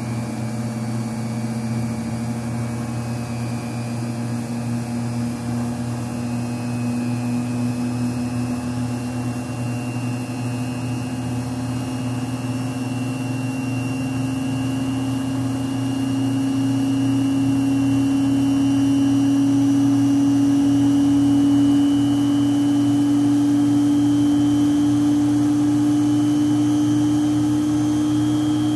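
Beckman J2-21 refrigerated centrifuge spinning up with its JA-20 rotor from about 13,000 toward 20,000 rpm: the drive whine rises slowly and steadily in pitch and grows a little louder, over a steady low hum.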